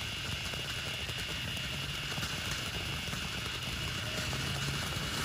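Ground fountain firework spraying sparks, making a steady rushing hiss.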